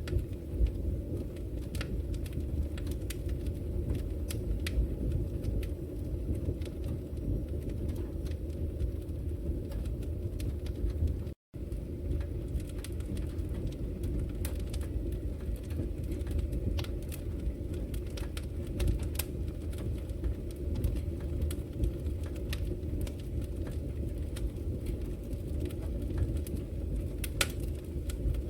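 Wood fire burning in a fireplace: a steady low rumble with scattered sharp crackles and pops. The sound cuts out for a split second about eleven seconds in.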